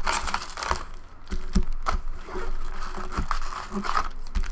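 Baseball card packs and their box being handled and opened: rustling of wrapper and cardboard with many small clicks and taps.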